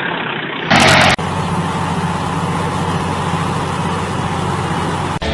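A loud half-second burst of noise about a second in, then a heavy machine's engine running steadily.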